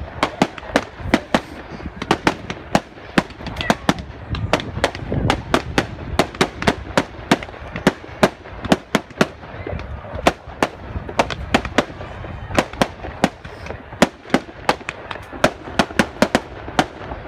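Fireworks going off: a rapid, irregular string of sharp cracks and bangs, several a second, over a low rumble.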